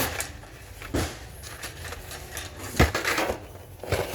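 Carded Hot Wheels cars being handled and sorted out of a cardboard shipping case: a few sharp taps and knocks of blister cards against each other and the box, with soft rubbing between them.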